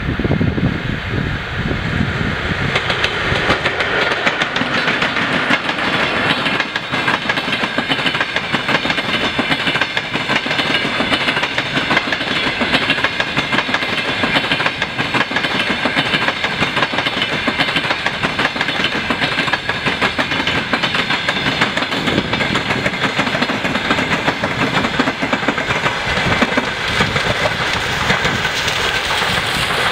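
Passenger train hauled by a ChS4T electric locomotive passing at about 60 km/h, its coaches' wheels clicking rapidly and steadily over rail joints and points.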